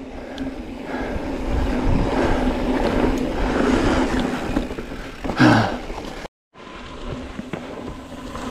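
Mountain bike riding on a dirt trail: wind and rolling trail noise on the moving camera with a steady hum, a brief loud burst about five seconds in, and the sound cutting out completely for a moment just after.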